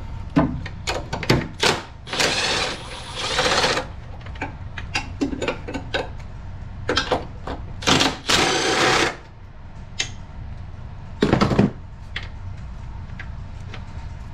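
A cordless power tool spins a socket on a long extension to run out bolts that have been broken loose. It runs in two bursts of a second or more, with clinks and clanks of sockets and tools between them and one short heavy clunk near the end.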